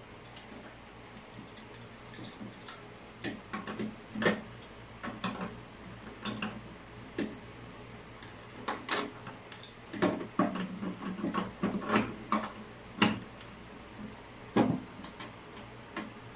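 Irregular clicks and knocks of plumbing fittings and tools being handled during installation work, some sharper and louder than others, with pauses between them.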